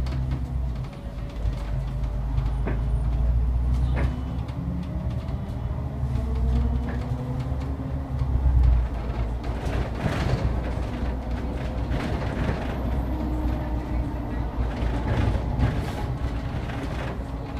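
City bus driving, heard from inside at the front: a deep engine rumble whose note rises and falls as the bus speeds up and slows, with occasional sharp clicks and rattles.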